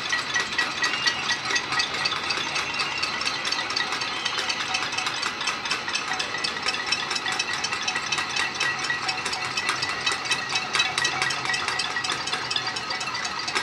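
Many residents across the surrounding apartment blocks banging pots, pans and spoons in a noise protest: a dense, continuous clatter of countless metal strikes with ringing metal tones.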